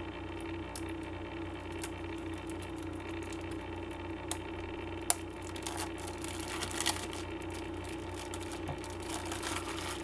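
Plastic packaging of a CD box set crinkling as it is handled, with a few sharp clicks in the first half and louder crinkling in the second, over a steady low hum.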